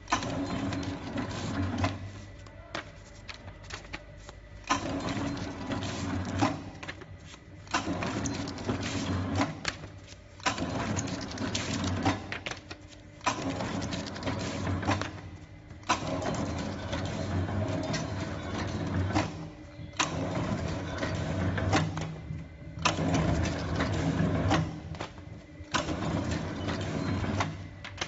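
SX-01A book sewing machine running through repeated sewing cycles: a clattering mechanical run with sharp clicks, stopping briefly every two to three seconds as each signature is sewn and the next is fed.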